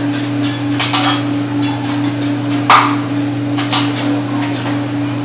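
Metal cooking utensils clinking and clanking on a hibachi griddle, in about five sharp strikes with the loudest about halfway through, over a steady low hum.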